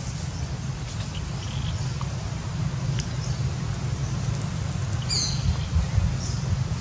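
Outdoor ambience dominated by a steady low rumble, with faint scattered high chirps. One short, high-pitched call glides downward about five seconds in.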